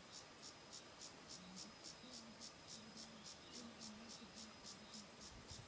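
Faint, steady chirping of an insect: short high-pitched pulses repeating about five times a second.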